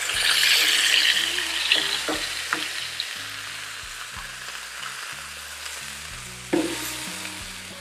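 70/30 ground beef sizzling on a hot flat-top griddle as a ball of it is smashed flat with a press and spatula. The sizzle flares loudly at once, then settles lower and steadier over the next few seconds.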